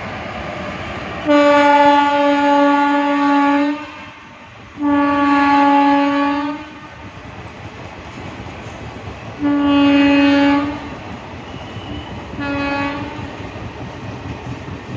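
Train horn sounding four blasts, two long, a shorter one and a brief last one, over the steady rumble of the running train.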